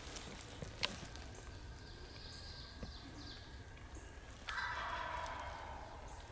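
Wild turkey gobbler gobbling once about four and a half seconds in: a sudden rattling call that fades over a second or so.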